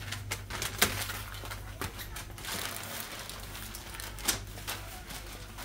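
Shop room tone: a steady low hum with scattered clicks, knocks and light clatter, the sharpest just under a second in and again about four seconds in.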